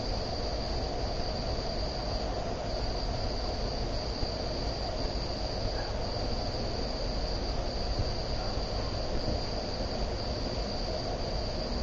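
SMC Laguna ceiling fan running steadily: an even rush of air and motor hum, with a continuous high-pitched tone over it.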